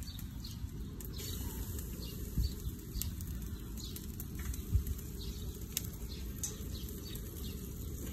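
Outdoor ambience: a steady low rumble with faint bird chirps and scattered light ticks. Two brief low thumps come about two and a half seconds in and again near five seconds.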